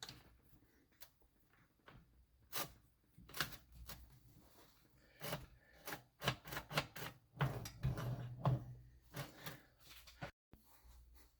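Irregular clicks, taps and knocks of metal motorcycle engine parts being handled and fitted together, as the two crankcase halves of a Honda CB100N engine are joined around the crank and kickstart.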